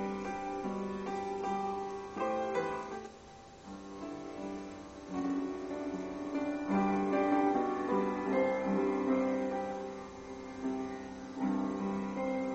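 Piano music played through a small speaker box driven by a homemade TDA2005 amplifier. It drops in level for about two seconds around three seconds in, then comes back up.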